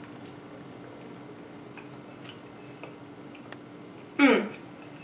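Chewing and faint clicks of a metal fork against a ceramic bowl. About four seconds in comes one short, falling "mmm" of approval as the dish is tasted.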